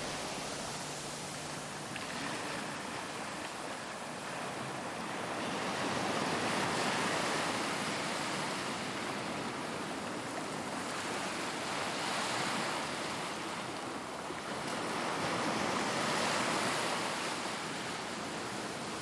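Ocean waves washing up on a sandy beach: a steady rushing hiss that swells and falls back in three slow surges.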